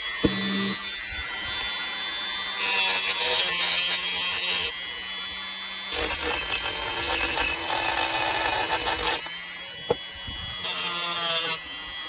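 Dremel rotary tool running with a steady high whine, its bit grinding against the metal centre of a die-cast toy tractor's rear wheel hub in three spells of louder rasping.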